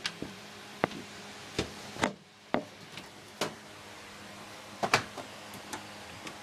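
Computer case side panel being handled and slid into place: about a dozen irregular sharp clicks and knocks, the loudest about a second, two seconds and five seconds in, over a faint steady hum.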